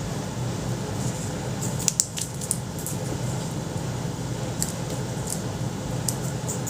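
Foam modelling clay being pressed and pulled by fingers, making scattered small sticky clicks and crackles, a cluster about two seconds in. A steady low hum runs underneath.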